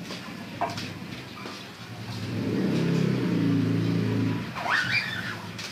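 A vehicle engine hum swells up in the middle and fades away over a couple of seconds. A short rising squeak comes near the end.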